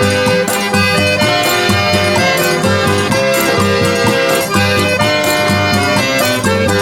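Forró music: accordion playing an instrumental passage over percussion with a steady beat, no singing.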